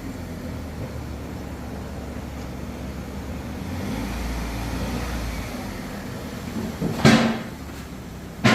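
Chevy Cobalt's engine idling with a low, steady rumble, its exhaust leak freshly repaired with a welded-on sleeve. Two sharp thumps come about seven and eight and a half seconds in.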